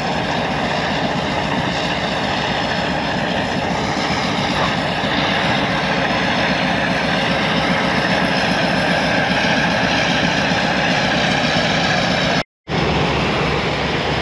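Steady engine drone of a sailing yacht under way, mixed with rushing wind and water noise; the sound cuts out for a moment near the end.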